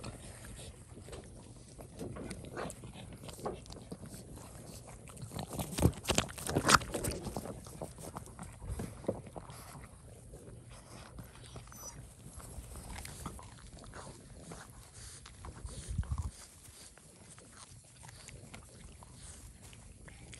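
Boston terriers chewing watermelon chunks: a run of short, wet crunches and clicks, loudest about six to seven seconds in.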